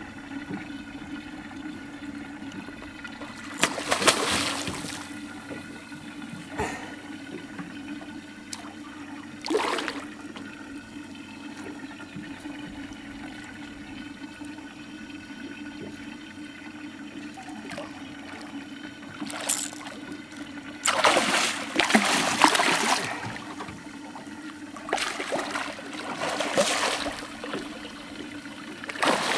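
A big hooked barramundi splashing and thrashing at the water's surface in several bursts, each a second or two long, the longest and loudest near the end, over a steady low hum.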